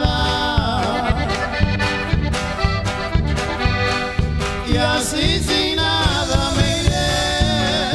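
Norteño band playing an instrumental passage: an accordion carries a trilling, ornamented melody over a steady pulsing bass and drum beat.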